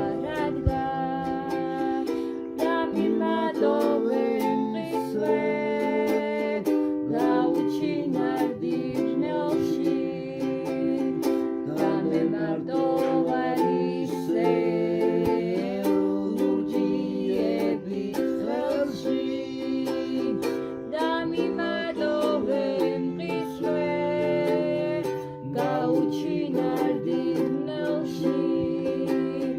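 Music played on a plucked string instrument, with wavering melodic lines that suggest a voice singing along.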